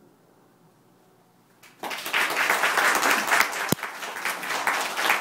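A brief hush, then audience applause breaks out suddenly about two seconds in and continues as dense clapping.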